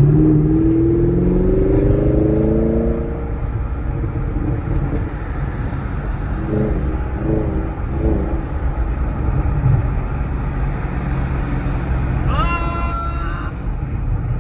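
Chevrolet Camaro SS's V8 engine accelerating, its pitch rising over the first few seconds, then cruising with a steady engine and road rumble heard from inside the cabin. A short rising pitched sound comes near the end.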